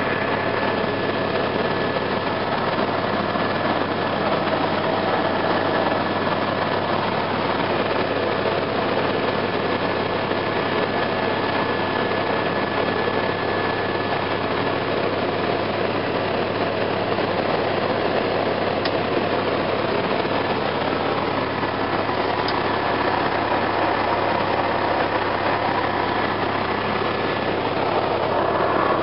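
Helicopter cabin noise in steady flight: a constant drone of turbine engine and rotor with a thin, steady whine over it, and a couple of faint clicks in the second half.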